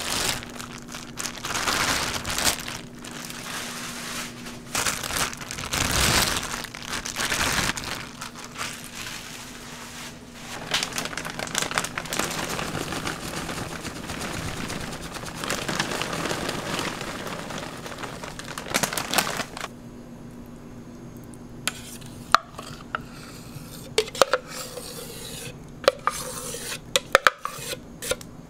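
Ingredients poured from a plastic bag onto ground meat in a metal tray: the bag crinkles and rustles, and metal clinks now and then. About two-thirds of the way in it turns quieter, with scattered light clicks.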